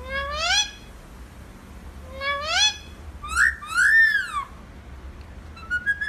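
Alexandrine parakeets calling: two rising, whistle-like calls, then two louder arching calls about three and four seconds in, and a short call near the end.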